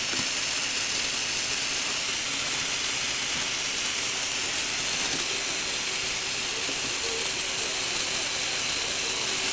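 Lego Technic three-speed gearbox driven by small electric motors, running steadily: an even whir of plastic gears meshing over the motors. A faint steady tone comes in about halfway.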